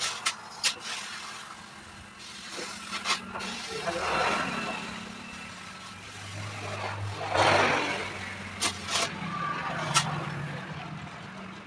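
Road traffic: vehicles pass by twice, each swelling and fading, over a steady low engine hum, with a few sharp clicks scattered through.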